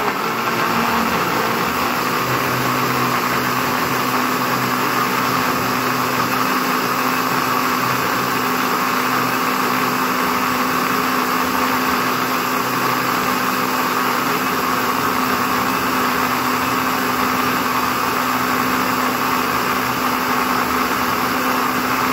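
Mondial countertop blender running steadily, its motor and blades blending leaves, garlic and ginger with water into a liquid.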